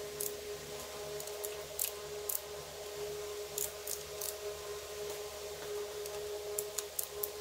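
Socket ratchet clicking in short runs of a few strokes as intake manifold bolts on a Buick 455 V8 are snugged down in a first tightening stage. A steady low hum runs underneath.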